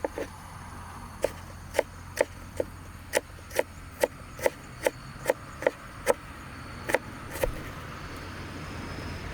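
Repeated wooden chopping knocks, about two or three a second with a brief pause after about six seconds, over a steady low hum.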